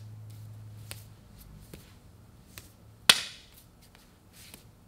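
Hands and forearms slapping and tapping against each other in a slow Wing Chun bil gee partner drill: a few light taps and one sharp, louder slap about three seconds in.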